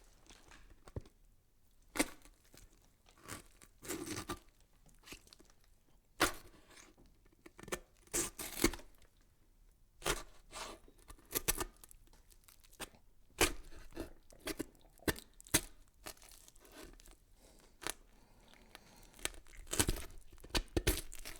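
Irregular crackling and tearing sounds, short rustling bursts and clicks at uneven intervals, like something being torn or crumpled.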